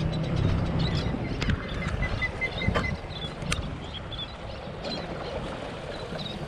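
Boat motor running at a steady low rumble, with a few faint knocks and faint high chirping in the background.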